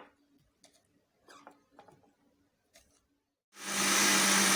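A few faint clicks and knocks of handling, then about three and a half seconds in an electric blender switches on and runs loud and steady with a low hum, blending lettuce, mint and water into juice.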